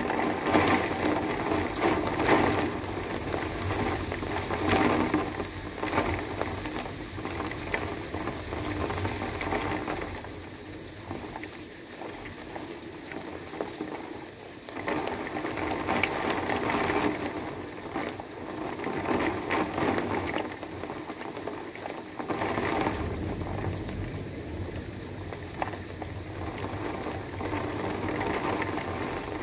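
Heavy wind-driven rain with a little hail coming down hard, a dense hiss of countless drops and small impacts. It surges and eases in waves, dropping lower about a third of the way through before building again.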